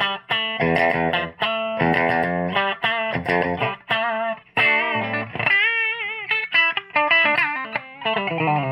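Electric guitar played through a Scholz Rockman Compressor module, with the module's input turned up a notch. Short repeated chord stabs come first, then single lead notes with wide vibrato and bends, ending in a falling slide.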